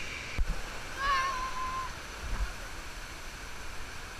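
Steady rush of water pumped over an artificial standing-wave surf ride. About a second in, a brief high-pitched shout rises above it, and there is a short low thump near the start.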